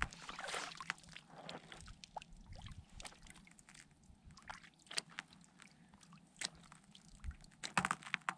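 Rubber boots walking away across wet, thin lake ice, squishing in the surface water, with scattered sharp clicks and taps and a cluster of them near the end.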